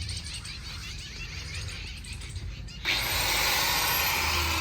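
Low background hum, then about three seconds in an angle grinder suddenly starts cutting into the motorcycle's steel exhaust silencer, a loud steady grinding noise.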